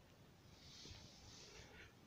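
Near silence, with one faint soft hiss starting about half a second in and lasting about a second.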